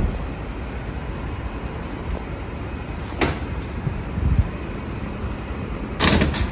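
Rear-loader garbage truck running steadily with a low rumble, with a short sharp noise about three seconds in and a louder burst of noise near the end.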